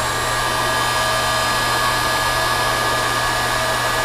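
Electric heat gun blowing steadily, a rush of air with a fan whine, shrinking heat-shrink tubing over soldered wire joints; it is switched off right at the end.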